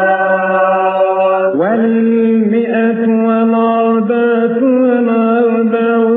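A man's voice chanting a long wordless melisma in Coptic liturgical style. A steady held note slides up to a higher note about one and a half seconds in, then is carried on with small wavering turns.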